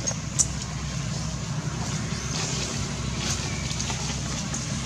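Steady low hum of an engine running, with a single sharp click about half a second in.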